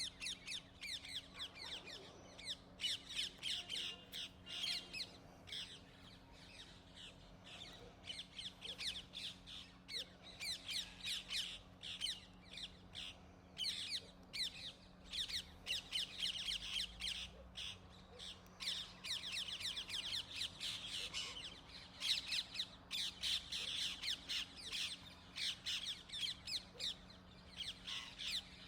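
Rose-ringed parakeets calling continuously: a flock's shrill, rapidly repeated squawks, several calls a second, overlapping and uneven in loudness. A faint steady low hum sits beneath them.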